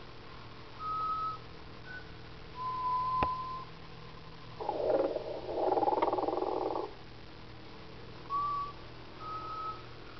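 Animated snoring Santa Claus decoration playing its recorded snore: single whistled notes come and go, with one long rasping snore in the middle and a sharp click about three seconds in.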